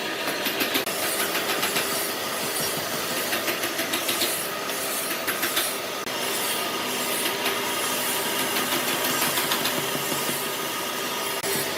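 Wood being worked with a tool: short runs of rapid scraping strokes over a steady machine hum.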